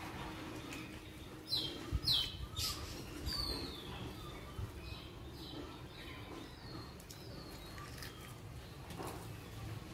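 A small bird chirping: a run of short, high, falling chirps. The loudest four come about one and a half to three and a half seconds in, and fainter ones follow.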